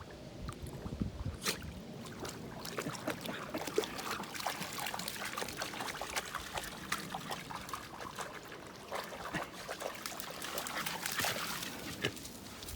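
A dog wading and splashing in a shallow creek: irregular sloshing and splashes of water with trickling and dripping.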